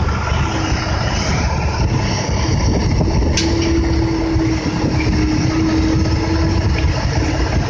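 Kobelco 135SR excavator's diesel engine working as the machine swings and digs a bucket of fill dirt, with a steady whine through the middle and a sharp click about three and a half seconds in.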